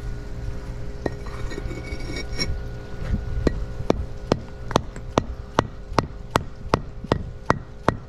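Rubber mallet tapping a concrete paver down into its sand bed: an even run of sharp taps, about two and a half a second, starting about three seconds in. Before that, the paver block clinks against its neighbours as it is set into the gap.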